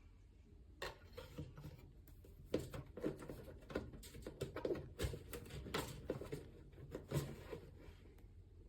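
Scattered light clicks and knocks of objects being handled, one or two a second, over a low steady hum.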